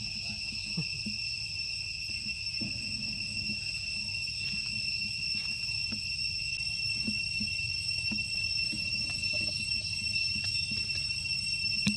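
Steady high-pitched insect chorus, a continuous drone of crickets or cicadas, over a low rumble, with faint scattered ticks.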